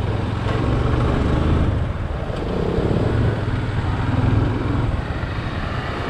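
Motorcycle engine running steadily while under way, heard from the rider's own bike.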